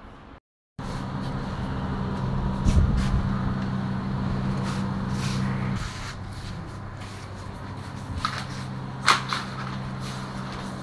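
Midea 2.0HP non-inverter air conditioner outdoor unit running, a steady low compressor hum with its condenser fan's whoosh. Two sharp knocks near the end.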